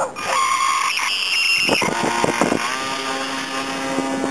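Electric 380 motor and propeller of a small RC foam plane whining at full throttle as it is hand-launched and climbs away. The whine shifts pitch and falls about two seconds in, then holds a lower steady hum.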